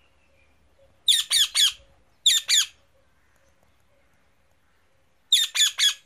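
Indian ringneck parrot giving short, shrill squawking calls in three quick groups: three calls, then two, then after a pause three more near the end.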